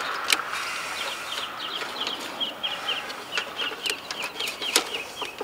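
A bird chirping over and over, a few short high calls a second, with scattered clicks.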